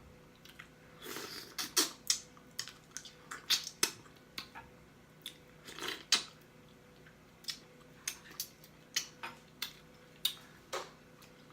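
Close-miked eating: a run of irregular wet mouth smacks and lip pops while chewing, roughly two a second, with a couple of longer, wetter chewing sounds about a second in and near the middle.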